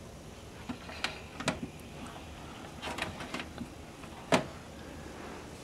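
Scattered clicks and knocks of an Apple TV box and its cables being handled and pushed into place on a shelf, with one sharper knock a little over four seconds in.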